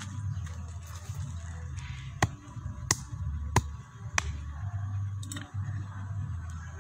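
A clump of dry termite-nest soil being broken apart by hand: four sharp cracks come about two seconds in, spaced a little over half a second apart, over a steady low rumble.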